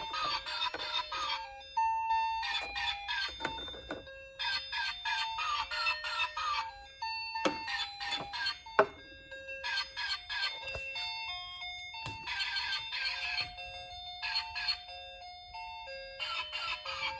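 Bright electronic music-box style tune with chiming high notes in short repeating phrases, and a few light clicks and knocks.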